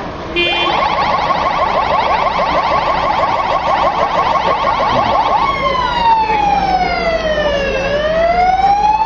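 Emergency vehicle siren switching on about half a second in with a fast warbling yelp, then changing after about five seconds to a slow wail that falls and rises again.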